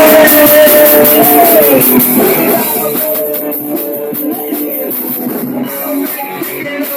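Rock band demo recording with electric guitar and drums kicking in loud. It is loudest in the first couple of seconds, then settles a little lower while the band keeps playing.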